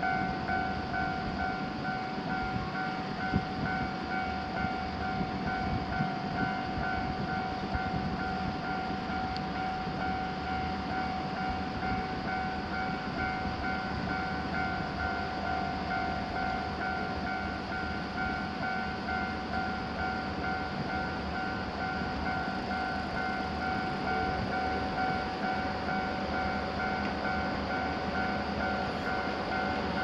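Japanese railroad crossing warning bell ringing steadily, an evenly repeating electronic two-tone ding that signals the crossing is closed for an approaching train. A continuous rumble of noise lies underneath.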